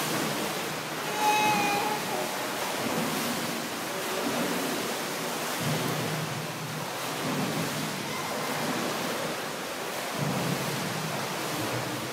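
Indoor swimming pool sound: a steady wash of water noise from a child swimming freestyle and splashing down the lane.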